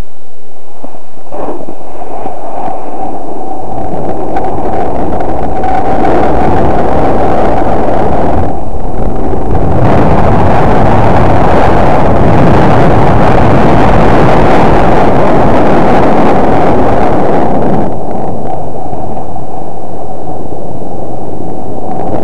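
Very loud wind rushing over the microphone of a snowboarder's camera during a fast descent, mixed with the board sliding on snow. It builds over the first few seconds and eases about four seconds before the end.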